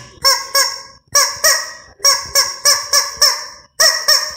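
Rubber chicken toy squeezed over and over, giving about a dozen short, loud squawks at roughly three a second, with a brief pause about three and a half seconds in.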